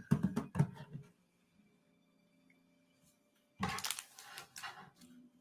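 Handling noise: a few soft knocks in the first second, then, after a pause, about a second and a half of rustling.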